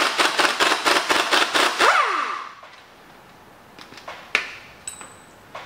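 Pneumatic impact wrench hammering rapidly for about two seconds as it spins the top nut off a rear strut assembly, then a falling whine as it winds down off the trigger. A few light clicks follow as the loosened nut is handled.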